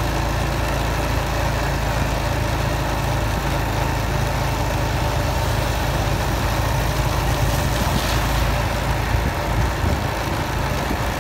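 Motorcycle engine running steadily at low riding speed, with an even hiss of tyres through shallow flood water on the road.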